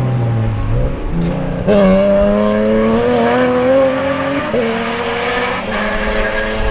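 Racing BMW M3 E36's 3.2-litre S50 inline-six under power. About two seconds in it suddenly gets louder and pulls hard, its pitch climbing slowly. At about four and a half seconds there is a quick upshift, and then it runs on at a steadier pitch.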